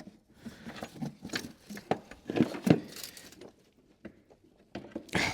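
Irregular small clicks, taps and rattles of hand work on a coolant hose and its plastic retaining clip in an engine bay, as the hose is worked to pull it off its connector.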